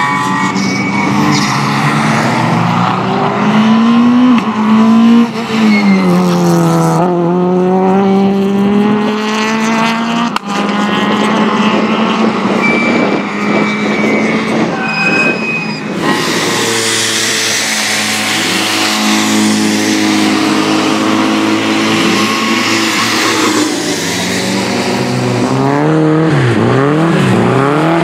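Rally car engines revving hard and falling back again and again as the cars are driven sideways around the circuit. About halfway through the sound changes to another car on a wet track, with a steady hiss of spray from the tyres under the engine.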